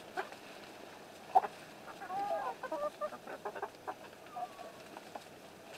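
A flock of chickens clucking quietly as they feed, in short scattered calls, with a few small sharp clicks among them.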